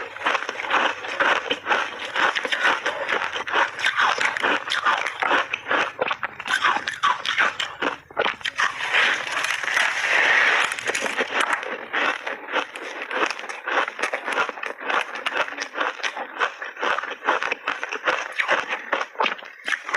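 Layered ice being bitten and chewed: a continuous run of irregular, crackling crunches, denser for a couple of seconds near the middle.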